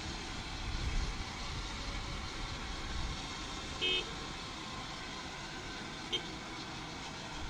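A helicopter on the pad running with its main rotor turning slowly, a steady mechanical rumble and hiss. A short horn-like beep sounds about four seconds in.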